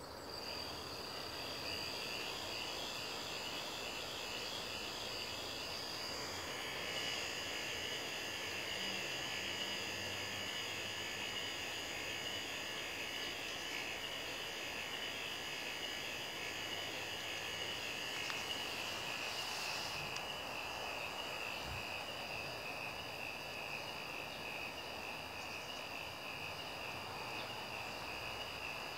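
Small electric motor and plastic gear train of a K'NEX swing ride model running: a steady high whine with a fast, even rattling pulse, growing a little fuller and louder about six seconds in.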